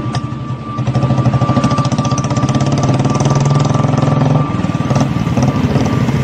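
Motorcycle engine running at low speed as the bike rides slowly past, with a fast, even beat. The beat eases about four and a half seconds in. A steady high-pitched tone sounds over it.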